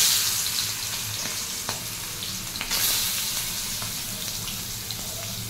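Prawns sizzling in hot oil in a kadai: a loud burst of sizzle as they go in at the start, swelling again near three seconds in, with scattered crackles and spits from the frying prawns.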